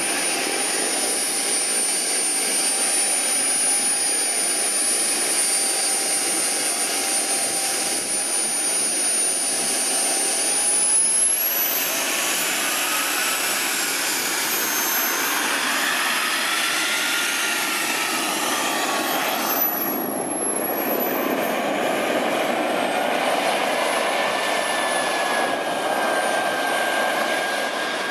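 Radio-controlled jet model's small turbine engine running with a steady high whine, then spooling up about ten seconds in and rising and falling in pitch several times as the throttle is worked, settling at a higher steady whine near the end.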